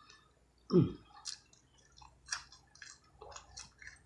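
Close-miked chewing of fried rainbow trout, with wet mouth clicks and lip smacks at irregular intervals. A short voiced "mm" falls in pitch about a second in.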